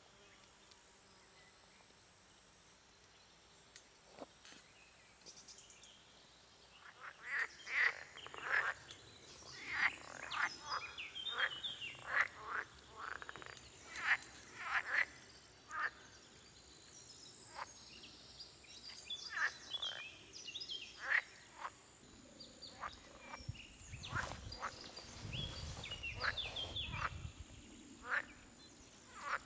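Quiet outdoor ambience, then from about seven seconds in many short, sharp animal calls in irregular series, with a brief low rumble near the end.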